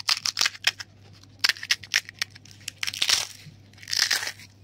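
Crisp fried semolina pani puri shells being crushed by hand: several bursts of sharp crackling and crunching, the sign of puris fried crisp and crunchy.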